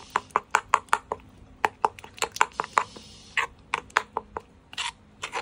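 Metal spoon stirring a runny shrimp paste dip in a granite mortar, clinking and scraping against the stone in quick, irregular knocks. The knocks thin out after about three seconds.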